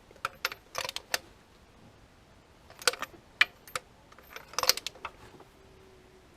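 Metal hand tools clinking and clicking in short irregular clusters, as spark plugs are fitted back into a freshly rebuilt engine.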